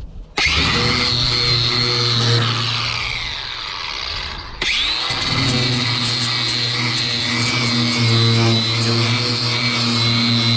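Electric power sander running on the aluminum hull to take off corrosion. It starts about half a second in and slows down midway. Near the middle it is switched on again and whines back up to speed, then runs steadily.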